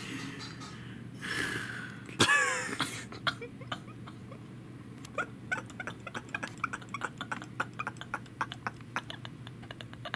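A man's stifled laughter: a loud, pitched vocal sound that bends up and down about two seconds in, then many short, irregular snickers and breaths over a steady low hum.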